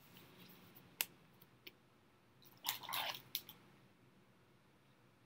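A trading card being slid into a plastic protective sleeve: faint plastic rustling, with a sharp click about a second in and a short rustle at about three seconds.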